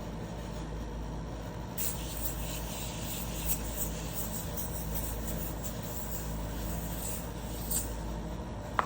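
Steady low mechanical hum, like a motor running, with a faint hiss that grows slightly about two seconds in and a short click near the end.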